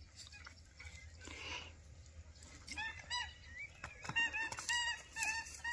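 A bird calling over and over in short, pitched notes, about three a second, starting about three seconds in and growing louder and more frequent.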